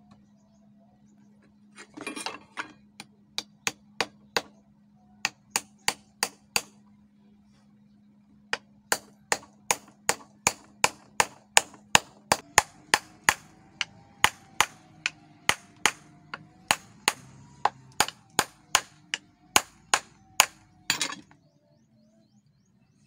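Hammer striking a metal ferrule to drive it down onto the end of a new wooden bolo handle: sharp metallic blows about two a second, in two runs with a short pause between. A brief clatter comes near the start and again near the end.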